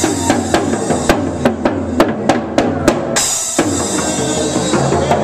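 Live percussion: a steady run of drum strokes with a high, rain-like hiss over them. The hiss stops briefly about three seconds in, then comes back.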